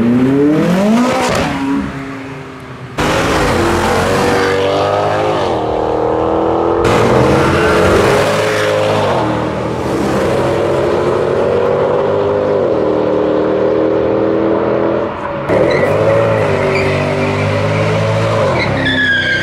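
High-performance car engines accelerating hard: the engine note climbs steeply, drops briefly and climbs again several times as the cars shift up through the gears. Near the end there is a short tyre squeal.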